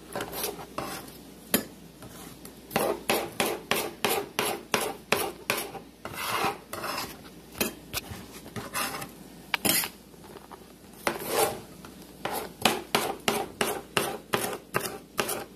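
Kitchen knife dicing a green pepper on a cutting board: an irregular run of quick chops and scraping strokes, with a few short pauses.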